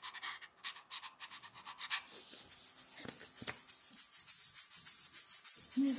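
Rapid, rhythmic dog panting, about five breaths a second, faint at first and much louder from about two seconds in.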